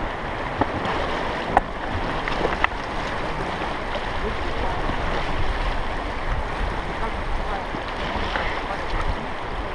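River water rushing and splashing around a boat on the river, with wind buffeting the microphone. Two sharp knocks, about one and a half and two and a half seconds in.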